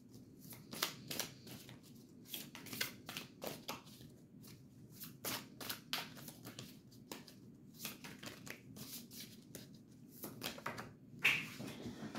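Deck of tarot cards being shuffled by hand: a run of soft, irregular card riffles and flicks, with a louder rustle near the end.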